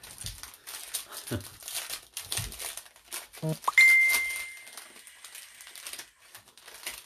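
Card-pack wrapper crinkling and tearing as a pack of hockey cards is opened and handled by hand. About four seconds in, a single bright ding rings out, the loudest sound here, and fades over about two seconds.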